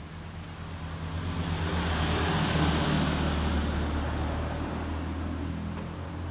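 Motor vehicle engine running with road noise. It grows louder over the first two to three seconds, then eases a little.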